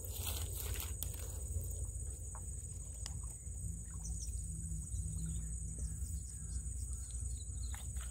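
Water splashing and dripping off a square lift net as it is hauled up out of a ditch, heard as scattered short splashes and drips over a steady high insect chorus and a low rumble.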